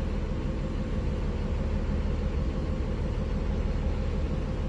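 Bus engine idling steadily at low idle with the fast idle switched off, a constant low rumble heard from the driver's seat.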